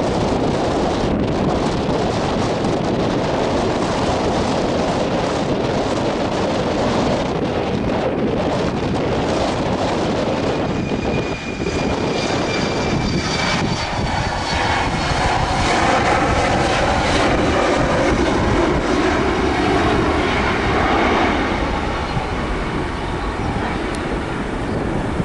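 Airliner engines passing, over strong wind buffeting the microphone. A faint high whine comes in about halfway, then the engine noise swells and eases off toward the end.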